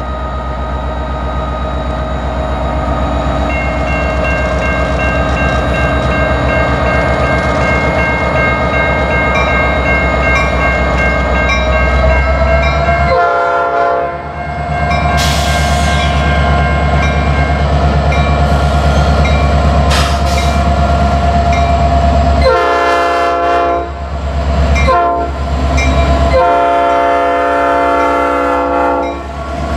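Norfolk Southern EMD SD60 diesel locomotive passing at close range with a tank-car train, its engine running with a steady low drone. It sounds its air horn in four blasts, the first a little before halfway, the rest near the end; the third is short and the last is the longest.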